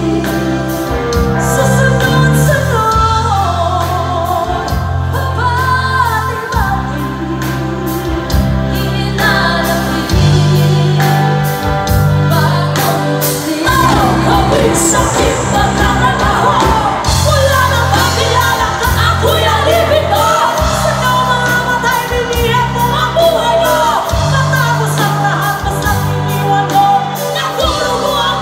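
Live band music with women singing into microphones, backed by electric guitar, bass guitar, keyboards and drums.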